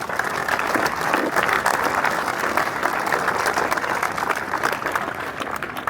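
Audience applauding, many hands clapping together; it fades out near the end.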